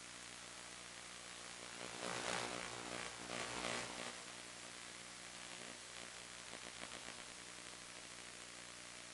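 Steady hiss of static with a faint electrical hum, typical of an analog FPV video link's audio. About two seconds in it swells louder for roughly two seconds, with a whine that slides in pitch, and there is a smaller swell near seven seconds.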